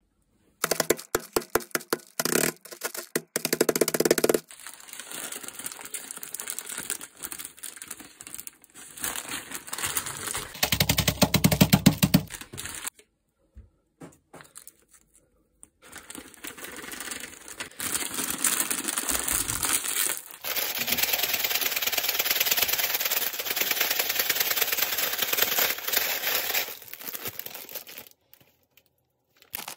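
Foil bag of Ottogi Ppushu Ppushu dry noodle snack being handled. It opens with a quick run of knocks as the noodles are crushed inside the bag. Crinkling and tearing of the foil packaging follow, with a loud crunching spell about eleven seconds in. From about eighteen seconds to near the end there is a long steady rustle as the bag is shaken with its seasoning.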